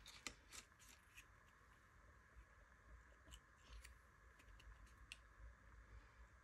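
Near silence with faint soft clicks and rustles of paper handling, as a small folded die-cut paper butterfly is picked up and pressed onto a kraft-paper card. The clicks cluster in the first second and come again a few times later.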